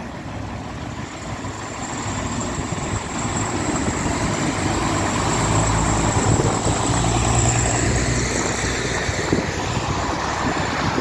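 A diesel track maintenance vehicle passes close by with its engine running in a low drone, over steady rail and wheel rumble. The sound builds to its loudest about five to eight seconds in. A thin high whine runs over it.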